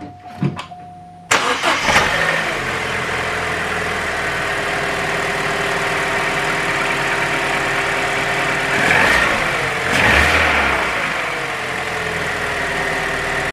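Vauxhall Adam's petrol engine starting, catching about a second in, then idling steadily on its newly fitted coil pack. Two brief rises in revs come near the end.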